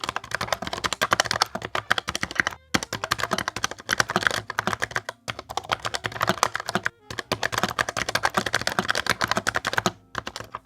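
Rapid typing on an AJAZZ AKL680 low-profile mechanical keyboard with Huano brown switches: a dense run of key clicks, broken by four brief pauses.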